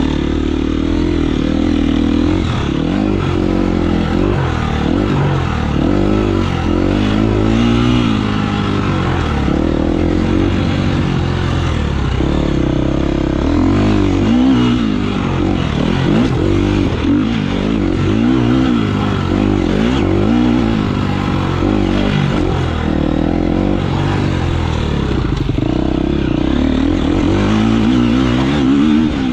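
Enduro motorcycle engine running hard, its revs rising and falling over and over with throttle changes.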